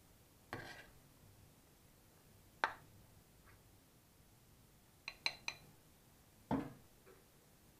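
A metal ladle clinks against a stainless steel pot and a bowl while food is served: a few single knocks, then a quick run of three ringing clinks about five seconds in, and a duller knock just after.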